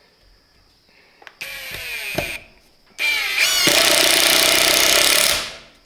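Cordless 20 V impact driver driving a 3-inch screw into pressure-treated 6x6 lumber. A brief, quieter run at low trigger starts the screw, then about three seconds in the motor speeds up and the impact mechanism hammers loudly and rapidly for about two and a half seconds before stopping.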